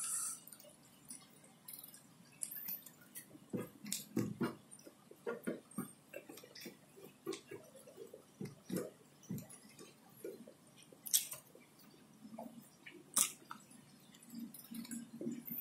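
Close-up chewing of fried catfish and rice eaten by hand, with irregular mouth clicks and smacks.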